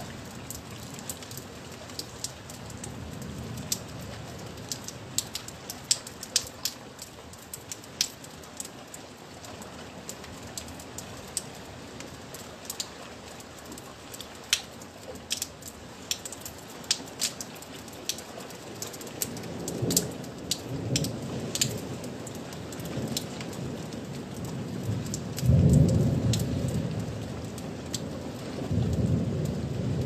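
Thunderstorm: rain falling, with many sharp drops ticking close by, and low rolls of thunder rumbling about two-thirds of the way in, loudest a little later, and again near the end.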